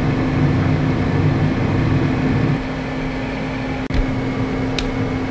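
Cooling fans running with a steady whir and a constant low hum, easing slightly about halfway through, with two short clicks near the end.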